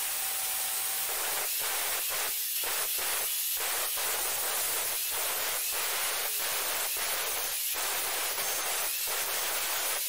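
Large angle grinder with an abrasive disc cutting into square steel tubing: a loud, steady hissing grind of disc on steel.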